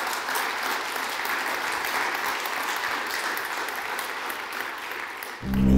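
Audience applauding with steady clapping. Near the end, loud music with strong low notes cuts in.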